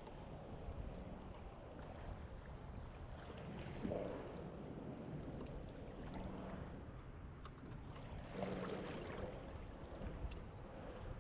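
Ocean water lapping and sloshing against a fishing kayak's hull over a low, steady rumble, with two louder slaps of water about four and eight and a half seconds in.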